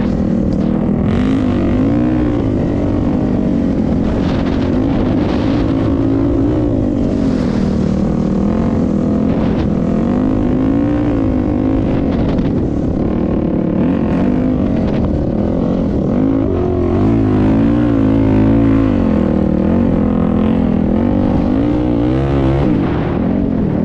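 A vehicle engine running steadily, its pitch drifting gently up and down every couple of seconds over a constant low rumble.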